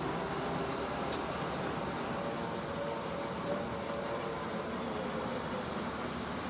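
Preet 987 self-propelled combine harvesters' diesel engines running steadily as the machines drive slowly past.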